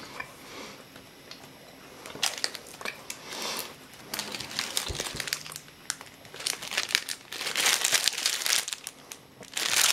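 Clear cellophane candy wrapping crinkling as it is handled and opened by hand, starting about two seconds in, in irregular bursts that are loudest near the end.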